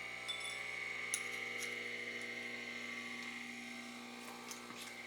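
Monarch 10EE lathe running with a steady high whine and lower hum, with a few faint light clicks.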